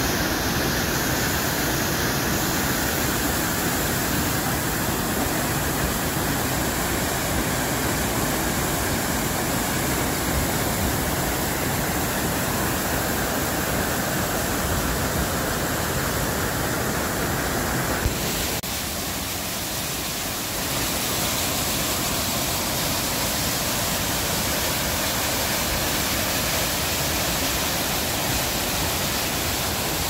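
Rain-swollen mountain stream and waterfall rushing, a steady dense noise of water; the sound changes abruptly about 18 seconds in, then goes on as before.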